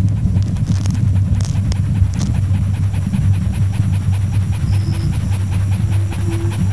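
Film sound design: a low, steady rumbling drone with fast, faint, regular ticking over it. A thin steady tone joins about two-thirds of the way through.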